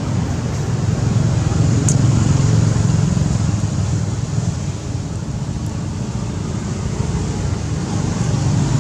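Steady low rumble of background noise that swells and eases slightly, with no distinct events.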